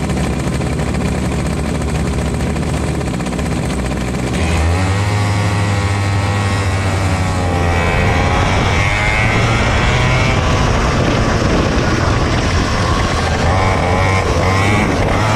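Racing kart engine heard from the driver's seat, running at low revs, then opening up about four seconds in; its note then climbs and drops repeatedly as the throttle is worked through the corners.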